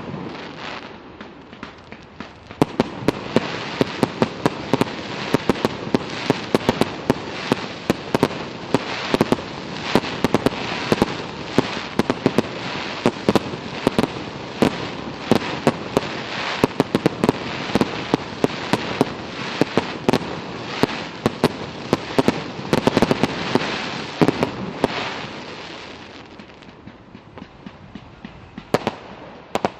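Fireworks display: a dense, rapid run of sharp bangs and crackling, thinning out near the end before a few more cracks.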